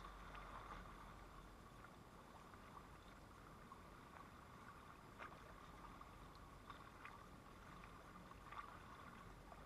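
Near silence: faint, steady lapping of water at a lakeshore, with a few soft ticks.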